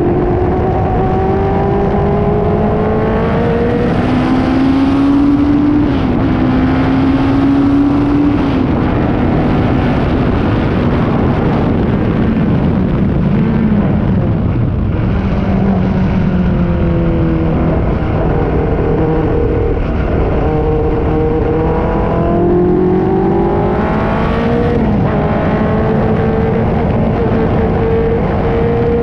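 F2 racing car engine heard onboard, its pitch climbing in long runs as it accelerates and dropping back at gear changes and lifts, with a slower stretch in the middle before it climbs again near the end.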